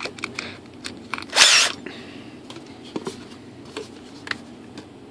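Handling noises at a workbench: scattered light clicks and taps as a cordless drill and foam and plastic model parts are picked up and moved, with one brief, louder scraping rub about one and a half seconds in.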